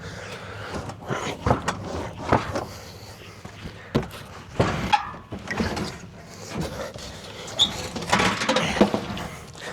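Machinery rattling, with repeated knocks and clatters and a short squeal about three quarters of the way in, as apple bins are being spread through the orchard.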